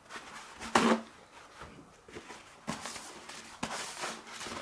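Paper towel torn off a roll and rubbed over a metal transmission part, heard as several short rustling and handling bursts. The loudest comes about a second in.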